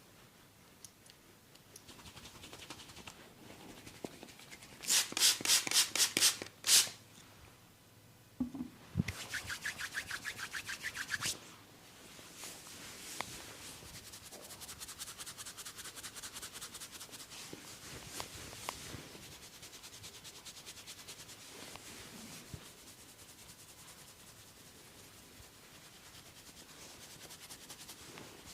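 Close-miked rubbing and scratching on a person's head during an ASMR barber massage. A run of loud, quick strokes comes about five seconds in, another about nine seconds in, and then a softer steady rubbing follows.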